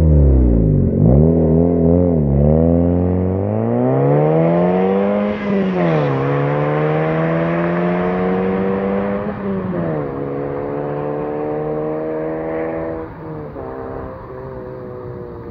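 Car engine under hard acceleration. The revs dip about a second in, then climb, falling back sharply near six and ten seconds as it changes up through the gears. The sound fades near the end as the car pulls away.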